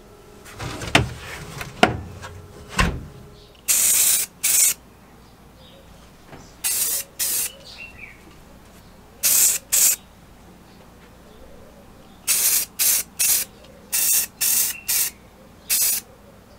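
Three sharp knocks in the first three seconds, then about a dozen short, hissing bursts of aerosol spray paint, fired in quick groups of two or three.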